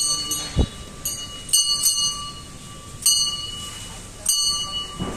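A single metal bell struck about seven times at uneven intervals, each stroke ringing with the same bright high partials and fading quickly. There is a low thump about half a second in.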